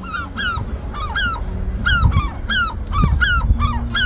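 Gulls calling in a rapid, continuous series, about three short arching calls a second, over a low rumble of wind on the microphone.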